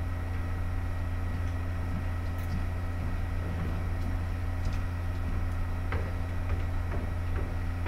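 Steady low electrical hum with no speech, and a few faint knocks about six to seven seconds in.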